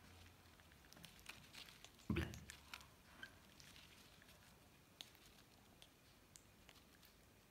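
Quiet, with faint scattered clicks of a hand-reared lovebird chick's beak working at a feeding syringe as it takes formula, and a soft thump about two seconds in.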